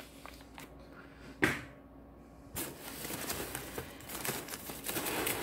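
Hands rummaging through dissolvable packing peanuts and crumpled paper packing in a cardboard box: one brief sharp rustle about a second and a half in, then a continuous crackling rustle from about two and a half seconds in.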